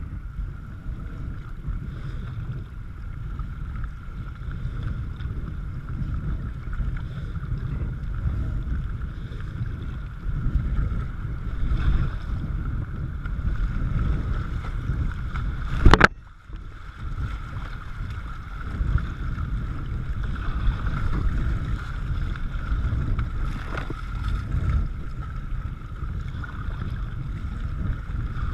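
River water rushing and splashing around a whitewater kayak and its paddle as it is paddled through light riffles, with wind rumbling on the microphone. A single sharp knock about sixteen seconds in.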